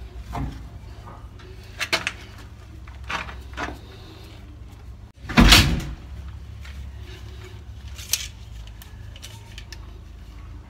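Knocks and clunks from handling a PVC pipe fitting on a water tank outlet: a few short knocks, with one louder, longer clunk about halfway through, over a steady low hum.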